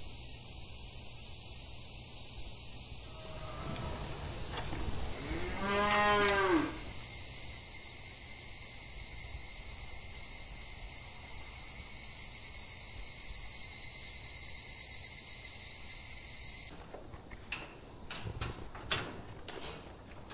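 A Holstein cow moos once, about six seconds in, a single call about a second long that rises and then falls in pitch, over a steady high-pitched hiss. Near the end the sound switches to a cattle barn with scattered short knocks.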